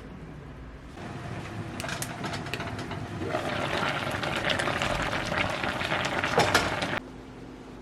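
Running water, steady, growing louder a few seconds in and cutting off abruptly near the end.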